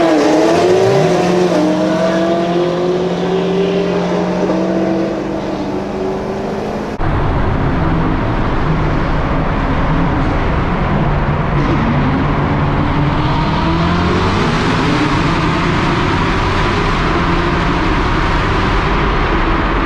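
Performance car engine under full throttle in a roll race, its pitch climbing and dropping back at upshifts, with heavy wind and road noise. About seven seconds in the sound cuts abruptly to a second hard pull, where the engine climbs again over louder rushing noise.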